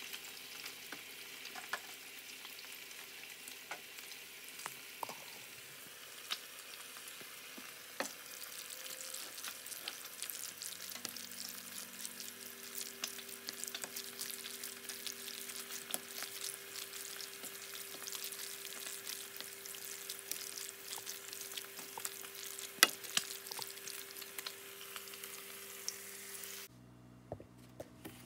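Food sizzling and crackling in a hot frying pan as it is stirred, with occasional sharp taps of the utensil against the pan. The sizzling cuts off suddenly near the end.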